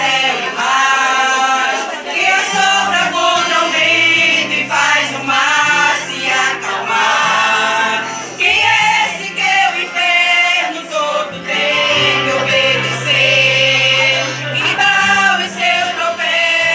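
A small group of women singing a gospel hymn together into microphones, amplified, over held low accompaniment notes.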